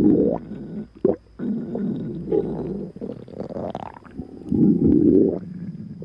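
Stomach growling and gurgling in a run of low rumbles, with a short pop about a second in and a gurgle rising in pitch about halfway through. The loudest rumble comes near the end.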